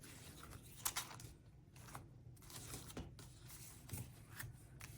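Faint rustling and a few light taps of paper cards and cardstock being handled and slid into place.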